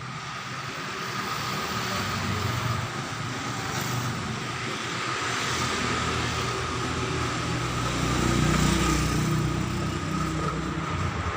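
A motor vehicle's engine running, growing gradually louder over the first eight or nine seconds.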